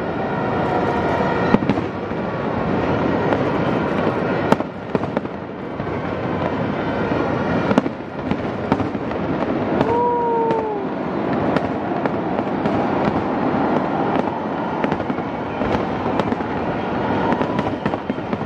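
Fireworks exploding: sharp bangs every few seconds over a steady background din, with a short falling whistle about ten seconds in.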